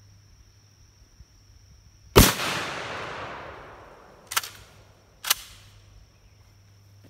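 A single 12-gauge shot from a Kel-Tec KSG bullpup pump shotgun fitted with a howitzer muzzle brake, loud and sharp with a long echoing tail of about two seconds. Then two quieter sharp clacks about a second apart as the pump is worked back and forward.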